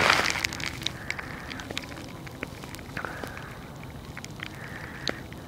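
Handling noise of the recording phone with its lens covered: a loud rustle at the start that dies away within half a second, then scattered light clicks and crackles.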